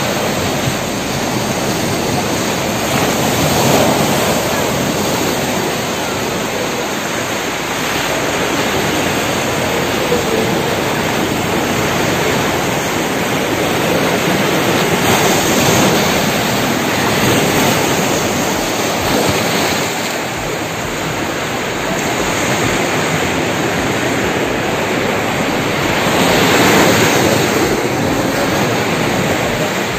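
Sea surf breaking and washing up a beach, a loud steady rush that swells louder a few times as waves come in.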